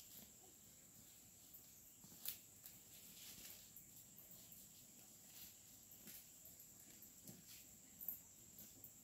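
Near silence with a faint, steady high insect drone, with a few soft snaps and rustles scattered through it, the sharpest about two seconds in.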